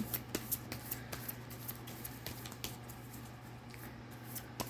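Tarot cards being shuffled and handled: a run of light clicks and flicks, dense for about the first second and a half, then sparser, over a low steady hum.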